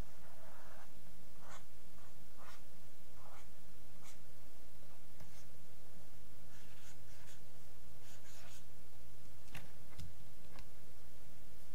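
Irregular short scratchy rubbing strokes, roughly one a second, of a hand-moved pointing device dragged over a desk surface while painting, over a steady low electrical hum.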